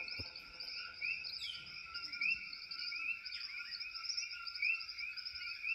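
Night chorus of frogs and insects: many overlapping chirps repeating steadily at several pitches, with one falling call about a second and a half in.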